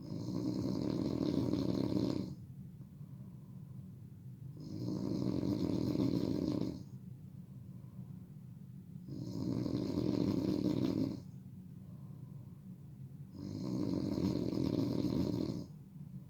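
A sleeping person snoring loudly: four long snores, each lasting about two seconds and coming about every four and a half seconds, with quieter breathing in between.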